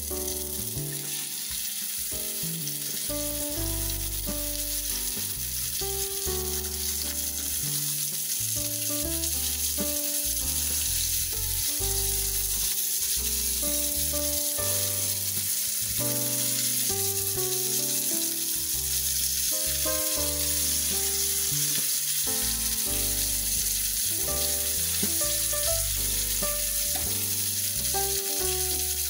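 Flour-dredged flounder pieces sizzling in hot oil in a frying pan, a steady hiss that grows a little louder in the first few seconds as more pieces go in.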